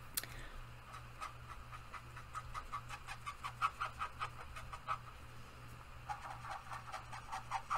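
Felt-tip marker scribbling on paper in short, quick back-and-forth strokes, colouring in a small heart, with a brief pause about five seconds in. A steady low hum runs underneath.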